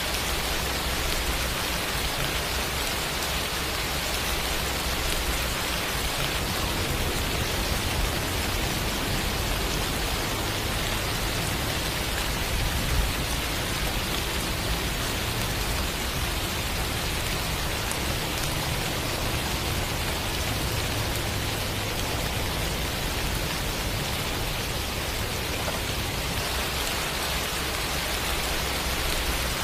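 Steady rain falling and pattering on surfaces, an even hiss with a low rumble underneath. One brief louder thump comes about halfway through.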